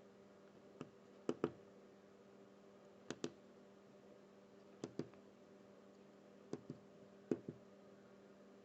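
Computer mouse clicking, mostly in quick double-clicks spaced a second or two apart, with a faint steady hum underneath.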